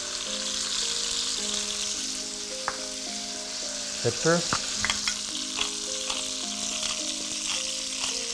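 Chicken pieces and diced pancetta lardons browning in hot peanut oil in a cast-iron cocotte, giving a steady frying sizzle.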